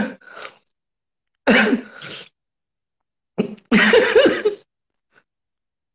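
A man laughing hard in three breathy bursts with silent gaps between them, the last and longest about three and a half seconds in.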